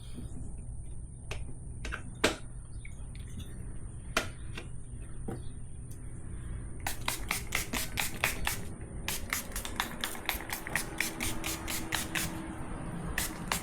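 Hand trigger spray bottle squirted in quick succession, about five squirts a second from about seven seconds in, spraying down the motorcycle tire and rim during a tire change. A few single clicks come earlier.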